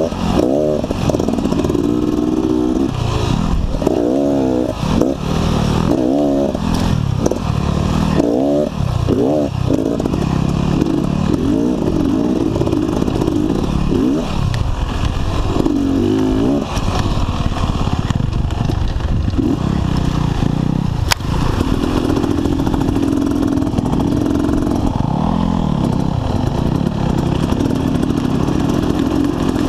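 Dirt bike engine heard from the rider's own bike on a rough trail, revving up and down with the throttle amid rattle from the bike. About two-thirds of the way through there is a sharp click, after which the engine holds a steadier pitch.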